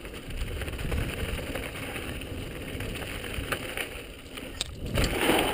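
Downhill mountain bike rolling fast over a loose, rocky trail: tyres crunching on gravel and the bike rattling over stones, with a few sharp clicks. It swells into a louder rush of noise near the end.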